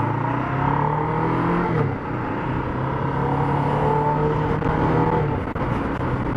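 Motorcycle engine pulling under acceleration with its pitch rising, dropping suddenly at an upshift about two seconds in, then running steadily at road speed before easing off near the end.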